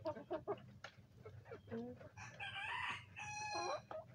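Chickens clucking softly and tapping as they peck at scraps, then a rooster crows once, starting about two seconds in and lasting about a second and a half.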